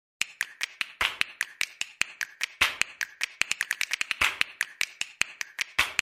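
A rapid series of sharp clicks, about five a second and some louder than others, stopping abruptly.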